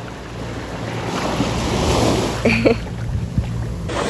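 Sea water sloshing and lapping in shallow surf, with wind rumbling on the microphone. A short shout cuts in about two and a half seconds in.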